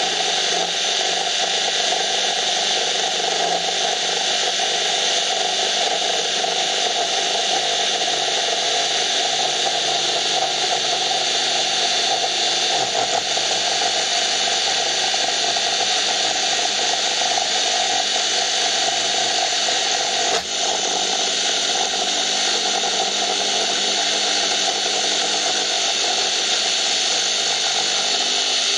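Mini vertical milling machine's spindle running steadily while its end mill cuts into a block of recycled HDPE plastic, with one brief dip about twenty seconds in.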